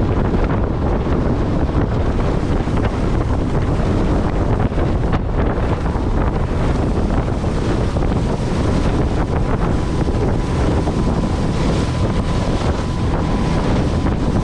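Heavy wind buffeting the microphone over a Mercury tiller outboard running at speed on a jon boat, with water rushing past the hull. A faint steady whine comes in during the second half.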